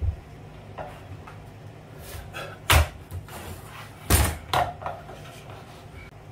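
Knocks and sharp clacks of vinyl deco tile planks and tools being handled and set down on the floor: a thump at the start, two loud clacks about three and four seconds in, and a few lighter knocks between.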